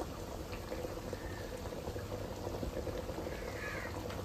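A pot of prawn curry bubbling steadily on the fire. A short high call sounds about three and a half seconds in.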